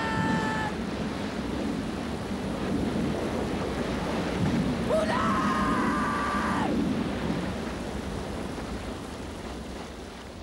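Storm at sea: a steady rumble of wind, rain and heavy sea, with two long wailing tones, a short one at the start and a longer rising one about five seconds in. The storm fades away near the end.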